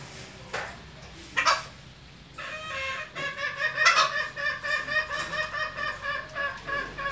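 Young junglefowl cockerel crowing in one long, wavering crow of about four and a half seconds, broken into quick pulses about four times a second; an immature, unpractised early crow. Two short sharp sounds come before it in the first second and a half.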